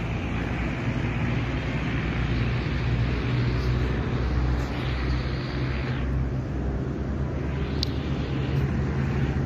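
Steady low engine rumble with a constant hum, and one sharp click near the end.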